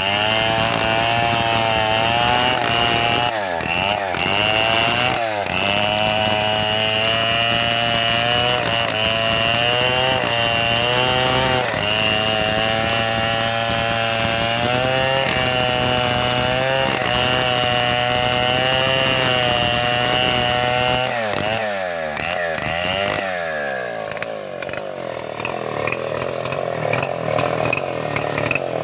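Homemade chainsaw ripping lengthwise through mango wood, its engine running under load with the pitch wavering up and down. The revs dip briefly a few times, and about three-quarters of the way in the engine falls to a lower, uneven running.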